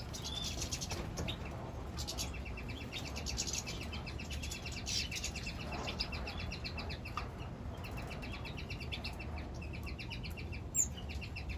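Caged finches twittering: a busy run of high chirps over a fast, steady trill that carries on through most of the stretch, with one short sharp high note near the end.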